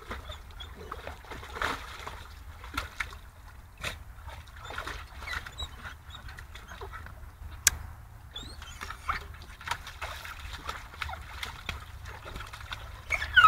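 Pool water splashing and sloshing irregularly as a dog wades and plays with a plastic play egg in a paddling pool. There is a sharp click about seven and a half seconds in, and a short high dog yelp near the end.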